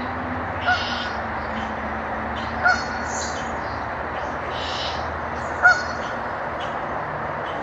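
Stream water rushing steadily, the creek running high after a couple of days of rain. Three short, high blips cut through it, two to three seconds apart.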